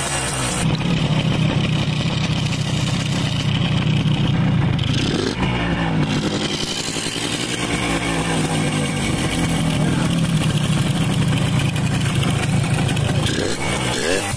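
Suzuki AX100's two-stroke single-cylinder engine running, with its pitch rising and falling as it is revved about halfway through and again near the end.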